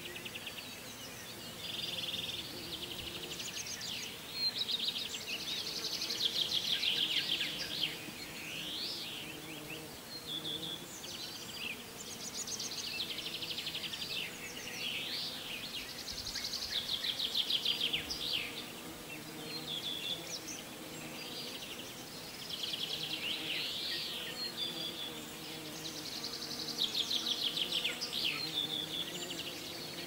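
Birds singing in the trees: repeated high trilling, chirping phrases every few seconds, over a faint steady low hum.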